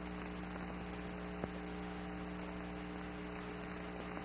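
Steady electrical hum on an old television soundtrack, with a faint click about a second and a half in.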